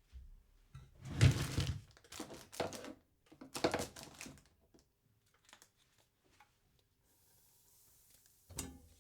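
Kitchen sounds from frying eggs: three short crackling bursts in the first half, with small clicks between them, then a faint hiss and a single knock near the end.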